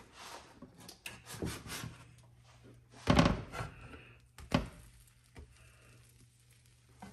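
A plastic spatula scraping under a pancake on a nonstick griddle and flipping it, with two dull thumps about three and four and a half seconds in as the spatula and pancake knock against the pan. A faint steady low hum runs behind.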